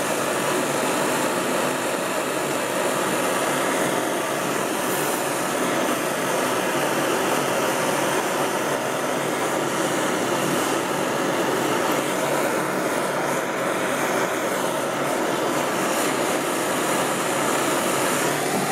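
Pre-war Hähnel No. 43 gasoline blowtorch burning at full flame, a steady, even rushing noise that holds unchanged throughout.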